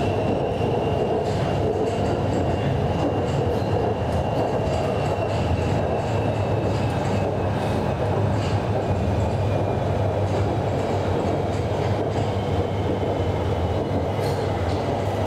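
Hanoi Metro Line 2A train running, heard inside the passenger car: a steady rumble of wheels and running gear with a faint high whine that slowly drops in pitch, and a few light clicks from the track.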